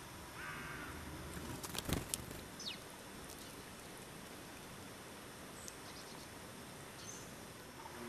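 Small wild birds calling around a garden seed feeder: a short wavering call about half a second in, two sharp knocks near two seconds, then a quick falling chirp and a few faint high chirps over a steady outdoor hiss.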